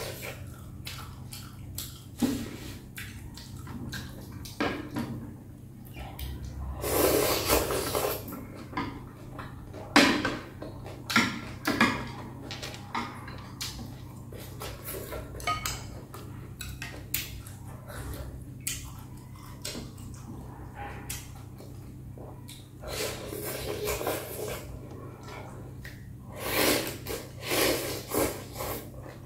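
Eating sounds: chopsticks and a utensil clicking against a glass bowl many times, with longer stretches of slurping and chewing of noodle soup a few times. A faint steady low hum runs underneath.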